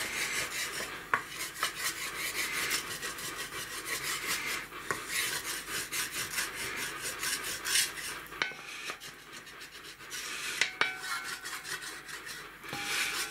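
Wooden spatula scraping the bottom of a hot Etalon cast-iron roaster in quick, repeated rasping strokes, a little softer for a few seconds after the middle. This is the excess oil, almost baked on during seasoning, being scraped off.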